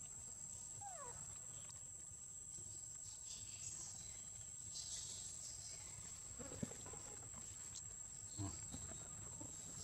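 Steady high-pitched insect trilling in the forest, with a brief falling call about a second in and a few soft rustles in dry leaves later on.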